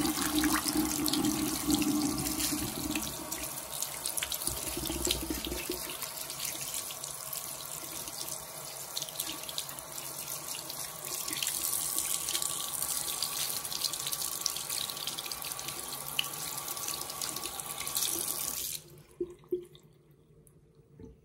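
Bathroom sink tap running, the stream splashing over a wet kitten held in hands and into the basin. The flow cuts off suddenly near the end, followed by a couple of soft knocks.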